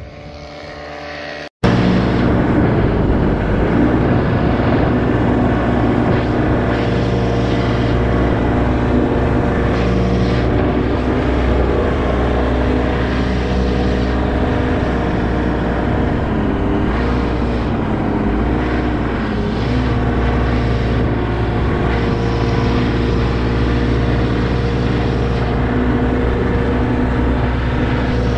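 Paramotor engine and propeller, heard at first from the ground as the pilot lifts off and building in level, then after a sudden cut about a second and a half in, loud and steady close up in level flight.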